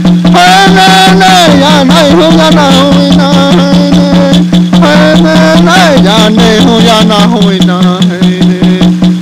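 Background music: a steady low drone under a quick, even rattle beat, with a melody that slides up and down over it.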